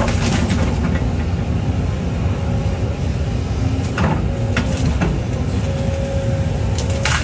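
An excavator's diesel engine runs steadily under work, with a thin steady whine in the second half. A sharp knock comes about four seconds in and another near the end.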